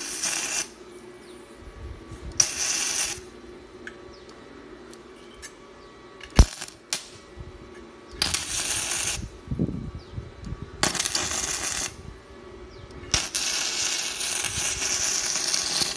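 Gasless MIG (flux-cored wire) arc from a JASIC 200B welder crackling in five short bursts of tack welding, the last lasting about three seconds. A single sharp knock about six seconds in.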